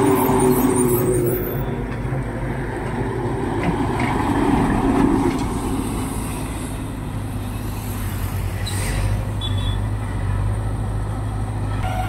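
Heavy trucks driving past close by, one after another, their diesel engines swelling and fading as they go by, over a steady low engine hum.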